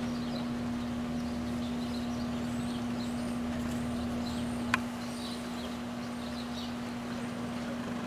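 A steady low hum, with many short, high peeps of mallard ducklings scattered through it and a single sharp click a little past halfway.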